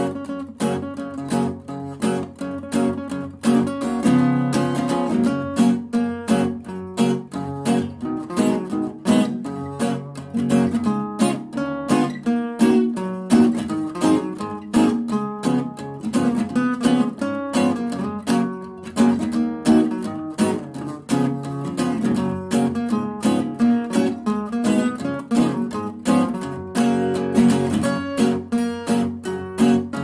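Background music with a quick, steady rhythm of plucked notes.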